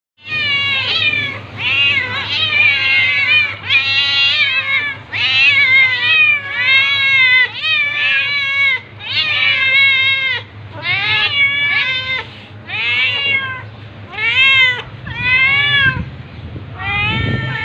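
A domestic cat meowing over and over: a long run of loud, drawn-out meows, each rising and then falling in pitch, one after another with short pauses.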